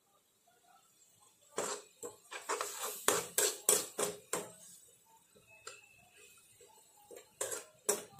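Metal spoon scraping and knocking against a frying pan while stirring a thick tomato-onion mixture: a quick run of strokes starting about a second and a half in, then softer ones, and a few more sharp strokes near the end.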